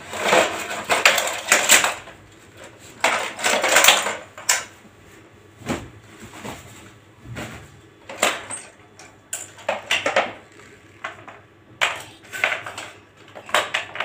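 Toys being pulled out of a bag and handled: two longer rustling bursts in the first few seconds, then scattered short clicks and knocks of hard plastic toys.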